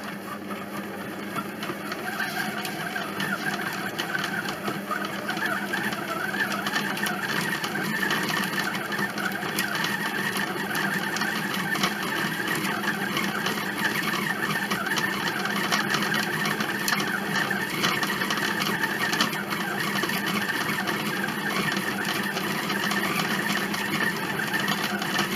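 Monsieur Cuisine Connect kitchen machine's motor kneading bread dough in its knead programme, a steady mechanical running sound. It picks up about a second in after the machine's pause and stops abruptly at the end as the timer runs out.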